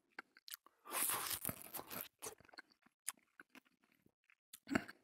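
A person biting into and chewing a piece of grilled gluten-free groats sausage (pork with rice groats) close to the microphone. The loudest chewing comes about a second in, then thins out into scattered small clicks, with one more short burst near the end.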